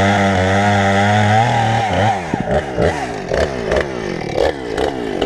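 Husqvarna 455 Rancher two-stroke chainsaw running at a steady high speed, as in a cut. About a second and a half in, its pitch rises briefly. It then drops into an uneven, wavering run with repeated knocks and clicks.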